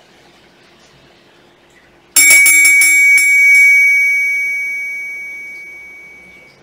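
A small meditation bell struck a few times in quick succession about two seconds in, then left to ring out, its bright high tone fading away over some three seconds. It signals the end of the meditation sitting.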